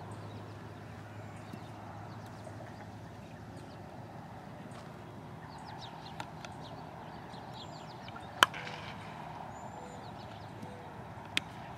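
A baseball bat hitting a ball with one sharp crack about eight seconds in, then a fainter crack near the end, over steady background noise.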